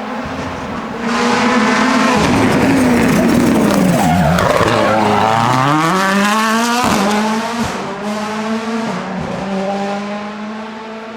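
Rally car's engine passing at high revs. The pitch drops sharply about four seconds in as the car brakes and changes down for a corner, then climbs again as it accelerates away through the gears and fades, with a few sharp cracks near the end.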